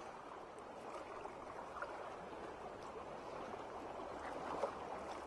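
Faint, steady watery gurgling and trickling, an underwater ambience under an animated logo.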